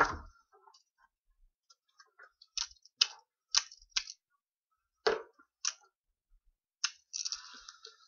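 VW Mk5 seatbelt retractor, out of the car with its side cover off, clicking as the belt webbing is pulled out and let back: about seven sharp separate clicks, then a short rasping sound near the end. Held level, the retractor's locking lever is free of its metal ball, so the belt pays out instead of staying locked.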